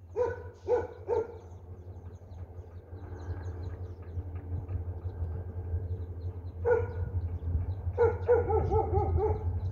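A dog barking: three barks in the first second and a half, one more about seven seconds in, then a quick run of barks near the end, over a steady low rumble.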